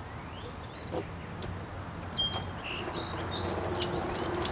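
Small birds chirping: many short, high calls and quick upward glides, over a steady low hiss that grows a little louder toward the end.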